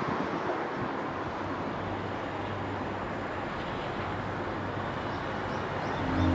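Steady outdoor ambient noise over a coastal town: an even rush with a faint low hum, like distant traffic and wind, with no distinct events.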